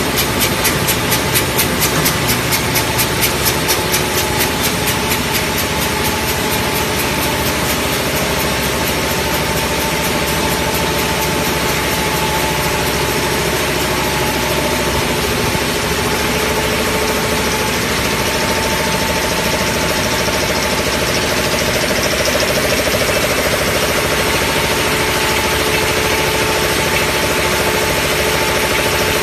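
Bottle-cap compression moulding line running: a steady mechanical din with a motor hum and whine. Fast, regular clicking from the cap sorter and conveyor in the first five seconds or so fades into the din.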